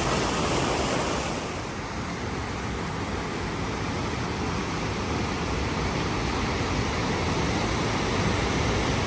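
Waterfall rushing: a steady roar of water falling over rocks into pools.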